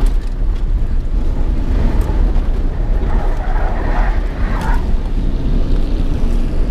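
2000 Ford F-150's engine running hard with a loud, steady low rumble, heard from inside the cab as the truck is driven hard in tight turns, with wind and road noise.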